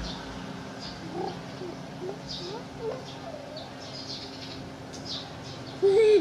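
Baby macaque giving short, rising squeaks while sucking milk from a bottle, then a louder call with a falling end near the end.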